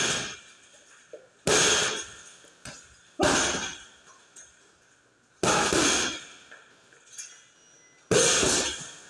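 Boxing gloves punching a hanging heavy bag: four hard single punches, one to two and a half seconds apart, each a loud smack that dies away over about a second.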